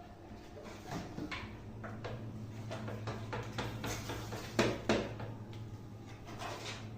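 Knocks and clatter of cooking work, the two sharpest close together near the middle, over a steady low hum.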